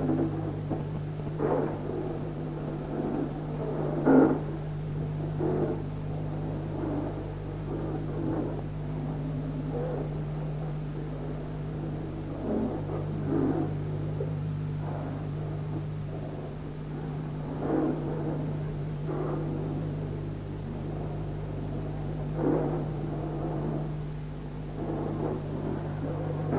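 A steady low electrical hum, with irregular swells of sound rising and falling over it.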